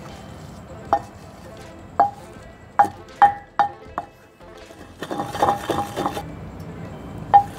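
Wooden pestle pounding soaked poppy seeds and raisins in a clay mortar: single knocks that each ring briefly, coming about once a second and then quicker. About five seconds in they give way to a fast run of knocks and grinding, and one more knock comes near the end.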